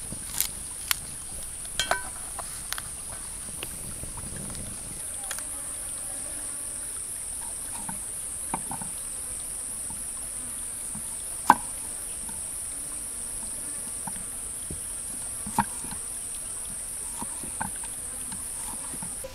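Steady, high-pitched chirring of insects, with a few sharp knocks of a knife blade meeting a wooden cutting board as a tomato is sliced; the loudest knock comes a little past the middle.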